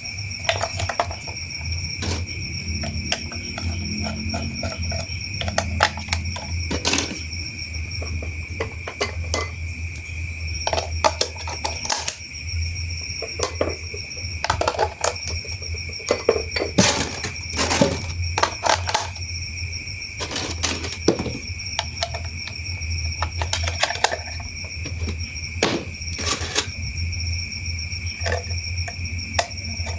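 Plastic toy train parts clicking and clattering irregularly as they are handled and fitted together, over a steady high-pitched whine and a low hum.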